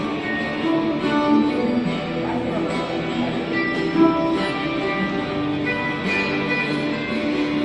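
Ukulele picked with a plectrum and played through an amplifier, carrying a melody line over a recorded backing track.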